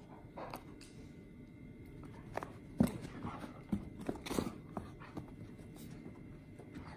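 German Shepherd puppy playing tug with a rope toy: irregular thumps and scuffles of paws on carpet and the toy being yanked, the loudest thump about three seconds in and a cluster just after four seconds.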